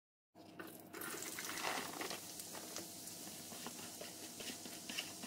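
Chopped onion and green bell pepper sizzling in hot oil in a pot, a steady frying hiss dotted with small crackling pops. It cuts in suddenly just after the start.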